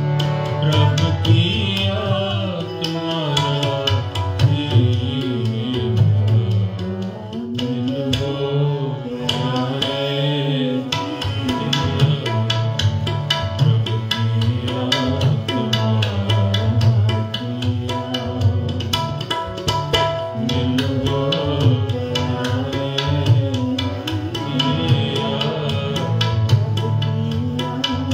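Sikh kirtan: tabla playing a steady run of quick strokes under two harmoniums' sustained reed chords, with a young woman singing the melody.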